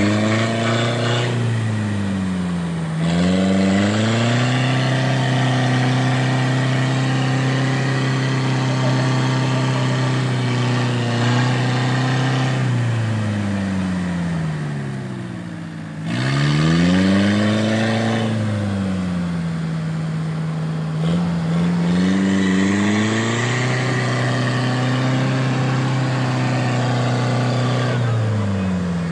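Engine of a homemade farm truck revving hard and held high as it tries to drive out of deep mud with rear-wheel drive only. The revs dip briefly about three seconds in, sink for a few seconds around the middle, then climb and hold high again.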